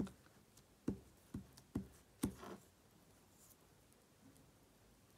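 Light taps and knocks of small craft items being handled on a tabletop, about six in the first two and a half seconds.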